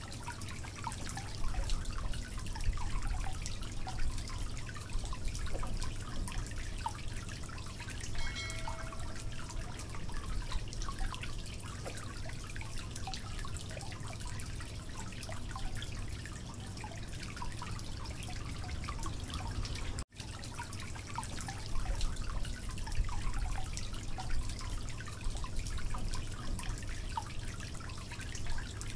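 Steady low hum with scattered faint clicks and taps from hands handling food and cookware, and one short ringing ping about a third of the way in. The sound cuts out for an instant about two-thirds of the way through.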